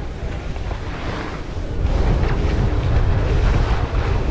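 Wind buffeting the camera microphone while skiing downhill, with skis hissing and scraping over packed snow. It grows louder about two seconds in.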